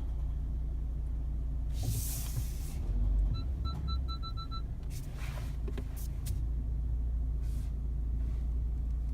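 Low, steady cabin rumble of the Mercedes E-Class W213 driving, under audio from a video playing through the car's speakers. About three and a half seconds in there is a short run of six or seven quick, high beeps, and a few sharp clicks follow.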